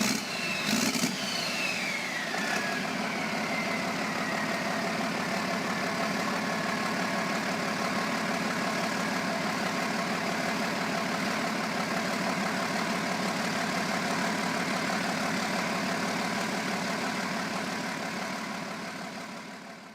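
Freshly overhauled Caterpillar 3406C inline-six diesel running steadily just after its first start. A high whine falls in pitch over the first couple of seconds, and the engine sound fades out near the end.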